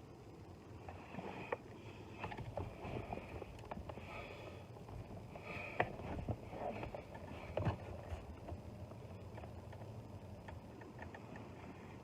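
Wire strippers working at a wire's insulation that will not slide off: scattered faint clicks and scrapes, with two sharper clicks a little past the middle.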